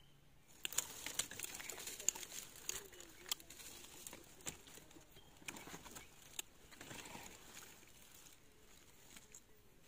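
Faint rustling of leaves and twigs, with scattered light snaps and clicks, as small wild mangoes are pulled from the branches by hand.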